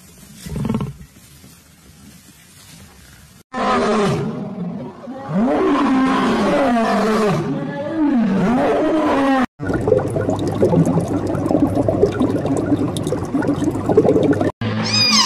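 Male lion roaring: a run of calls that swell and fall in pitch, one after another, for about six seconds. It is preceded by a single low thump and followed, after a sudden cut, by a steady rushing noise with faint clicks.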